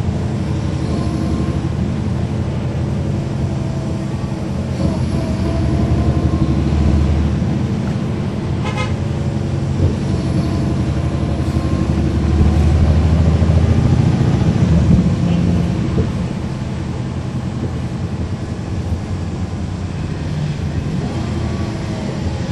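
On board a 2009 NABI 416.15 transit bus: its Caterpillar C13 diesel engine and ZF Ecomat automatic transmission running as the bus is under way, swelling louder twice. A short run of rapid ticks is heard briefly about nine seconds in.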